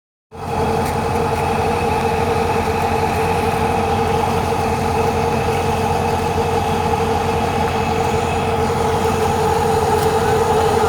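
Engine of a heavy machine running steadily at constant speed, a loud, even drone with a steady whine over it.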